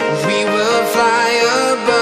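Background pop song: a vocal line over guitar and steady instrumental backing.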